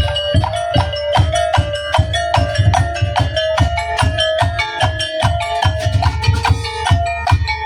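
Tongtek percussion ensemble playing: rapid, dense strikes on wooden and bamboo percussion with pitched, ringing notes over low drum beats, starting abruptly.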